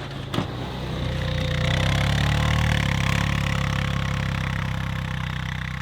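Plow vehicle's engine running under load in deep snow, rising to a louder stretch a couple of seconds in and then easing off, with a single sharp click near the start.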